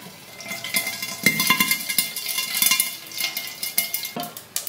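Mustard seeds spluttering in hot coconut oil under a glass pan lid: a rapid crackle of small pops, the tempering stage when the seeds burst in the oil. The pops start about a second in and die down near the end.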